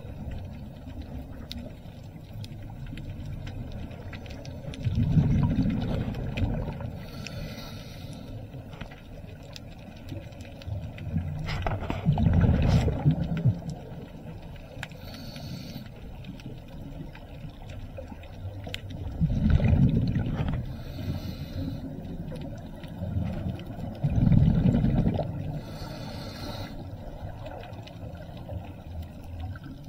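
Scuba diver breathing underwater through a regulator: a short hiss on each inhale, then a loud bubbly rumble of exhaled air, four breaths about every five to seven seconds.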